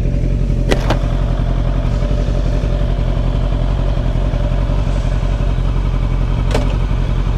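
Motorcycle engine idling steadily, with a few sharp clicks: two close together about a second in and one more near the end.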